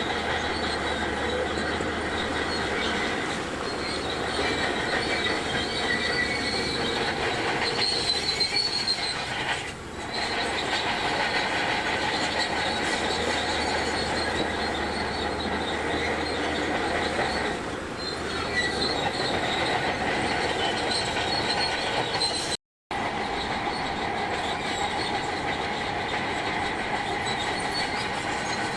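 Shantui DH17C2 crawler bulldozer working, its diesel engine running under the high squeal and clatter of its steel tracks. The sound breaks off for a moment about three-quarters of the way through.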